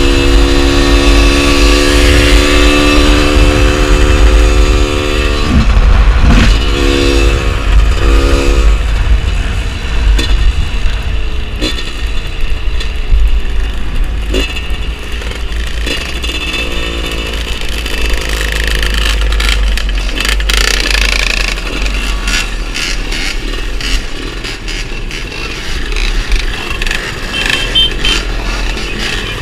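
Motorcycle engine running on the move, with heavy wind rumble on the microphone. The engine note holds steady for the first few seconds, then rises and falls as the speed changes, and it is quieter near the end.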